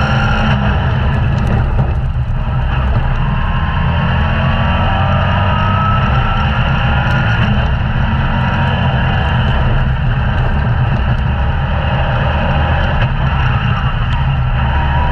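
Onboard sound of a dirt-track race car's engine running hard under a heavy, steady low rumble, its note climbing in pitch as it accelerates, with a brief dip about two seconds in.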